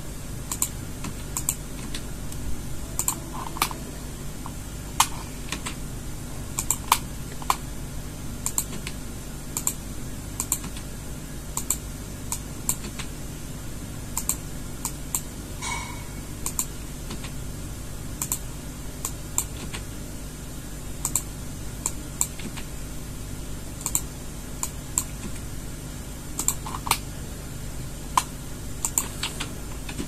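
Computer keyboard keys pressed one at a time, irregular single clicks about once or twice a second, over a steady low hum.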